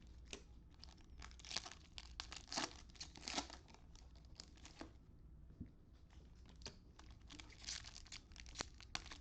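Faint crinkling and tearing of a plastic trading-card cello pack wrapper, with cards being handled, in irregular crackles that thin out briefly in the middle and pick up again near the end.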